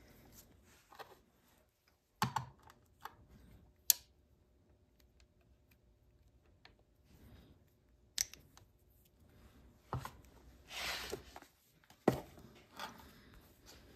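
Scattered sharp metallic clicks and knocks, one or two seconds apart, from a Colt Walker percussion revolver being handled as its cylinder is turned and its loading lever worked to seat a bullet over a powder charge. A short scraping rasp comes near the end.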